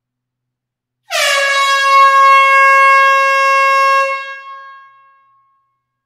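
Air horn sounding one long blast of about three seconds, its pitch dropping briefly as it starts, then dying away in the reverberation of an enclosed hall.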